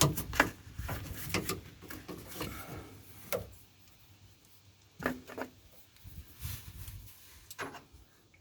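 Metal clicks, knocks and scrapes of tools working an oil filter loose. They come thick and fast for the first three seconds or so, then settle to a few single knocks.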